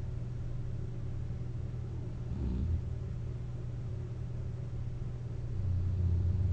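A person snoring while wearing a CPAP mask and lying on their back. There is a short low snore about two and a half seconds in and a longer one starting near the end, over a steady low hum.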